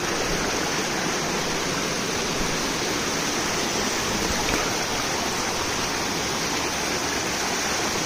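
Rocky hill stream rushing over boulders, a steady even rush of water.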